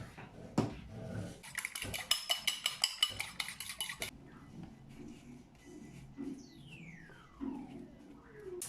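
A metal utensil clinking quickly and repeatedly against cookware for about two and a half seconds, each stroke ringing briefly. Near the end, a long tone glides steadily down in pitch.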